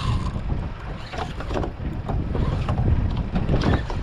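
Wind buffeting the microphone aboard a boat at sea: a steady, uneven low rumble with a hiss over it.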